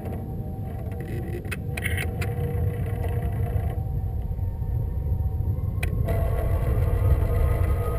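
Wind buffeting the microphone of a GoPro Hero camera riding on a high-altitude balloon payload: a steady low rumble, with a few light clicks from the payload around two seconds in and again about six seconds in.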